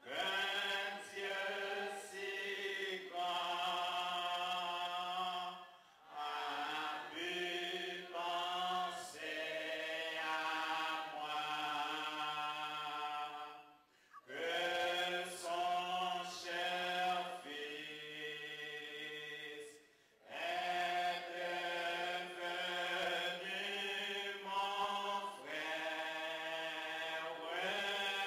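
Group of voices singing a slow hymn, long held notes in phrases several seconds long with short breaks between them.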